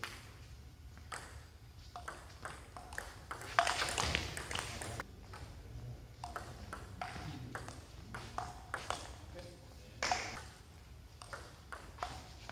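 Table tennis ball clicking off paddles and the table in a rally, a string of short, light, ringing pocks. A couple of louder, noisier sounds come about four and ten seconds in.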